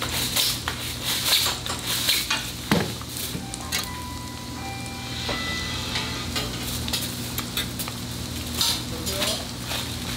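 Hamburger fillings frying and sizzling on a flat griddle, with a metal spatula scraping and tapping against it, busiest in the first few seconds.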